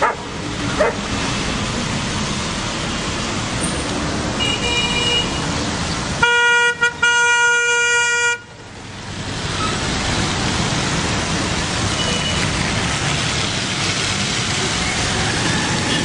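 Road traffic running steadily. A car horn sounds faintly at about four and a half seconds, then a loud blast of about two seconds comes about six seconds in, with a short break.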